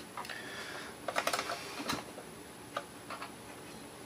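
Scattered light clicks and taps as a screwdriver is set down and a metal plate is fitted back into a Kodak Carousel slide projector's mechanism, with a quick run of clicks about a second in and single taps after.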